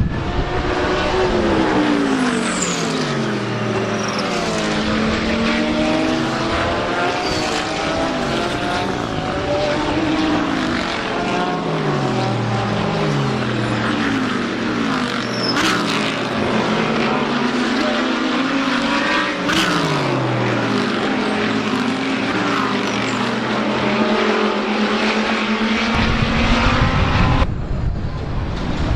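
GT3 race cars running at racing speed past the track edge, several in succession, their engine notes repeatedly sweeping up and down as they pass and change gear.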